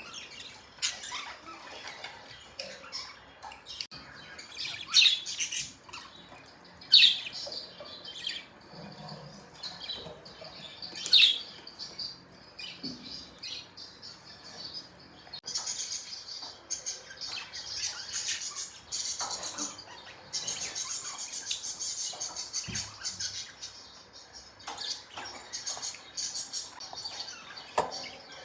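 Several budgerigars chirping and chattering. A few loud, sharp calls stand out in the first half, and a steady run of rapid twittering fills the second half.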